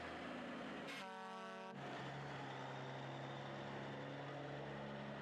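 GMC General semi-truck's diesel engine running steadily, with one short blast of the truck's horn about a second in.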